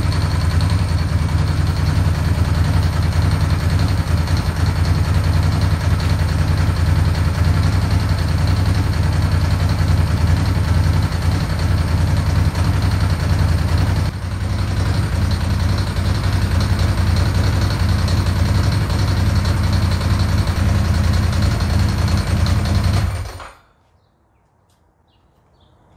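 Ducati 916's V-twin engine idling steadily, with a slight dip about 14 seconds in, then shut off abruptly about 23 seconds in. It is running on a newly fitted regulator-rectifier, putting out almost 13 volts at idle.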